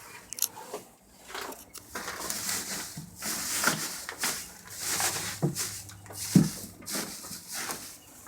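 Dry hay rustling in repeated swishes as it is handled and spread for bedding, with a few soft thumps.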